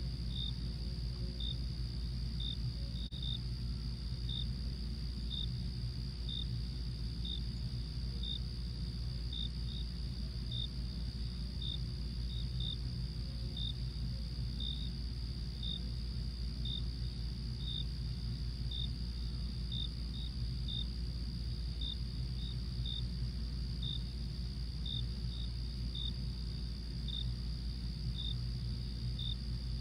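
Crickets chirping in a night-time ambience: short high chirps about once a second over a steady high insect drone, with a steady low rumble underneath.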